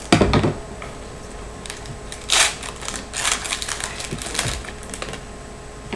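Foil trading-card pack crinkling and crackling as it is torn open by hand, in irregular rustles about two and three seconds in. A low thump on the countertop at the very start.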